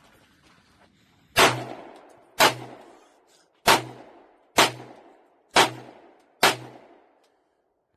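Six 9mm gunshots from a Sig Sauer Copperhead AR-style pistol, fired at a slightly uneven pace of about one a second, each a sharp crack with a short decaying echo.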